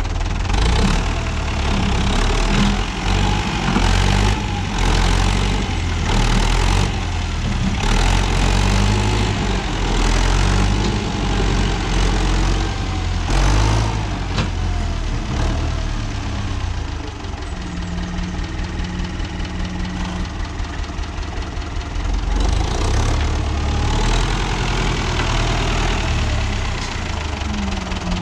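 Renault 651 tractor's diesel engine running under work, its note rising and falling, with scattered knocks and clatters over it.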